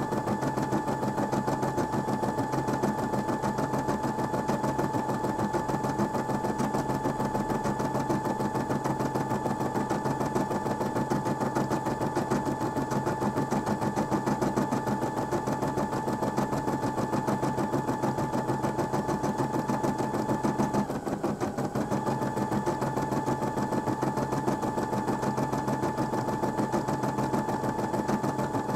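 Brother M280D embroidery machine stitching out a design: a fast, even needle clatter over a steady motor whine. About two-thirds of the way through, the whine dips and wavers for about a second, then carries on.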